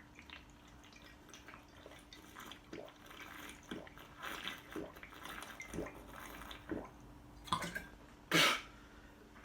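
A person drinking, with gulps about once a second and faint liquid sounds, then a short, much louder noise near the end.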